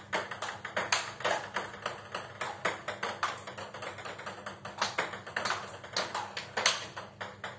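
Table tennis rally: the ball knocking on rubber-faced bats and bouncing on the table in quick alternation, a steady run of sharp knocks several times a second.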